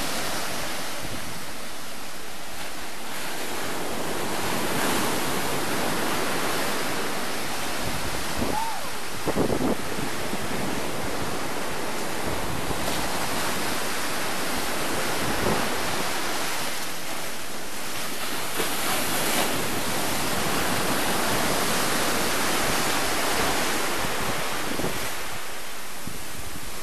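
Sea surf: waves breaking around rocks and washing up a sandy beach, a continuous rushing that swells and eases.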